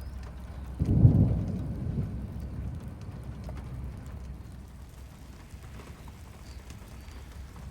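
A clap of thunder about a second in that rumbles away over the next couple of seconds, over steady heavy rain from a severe thunderstorm.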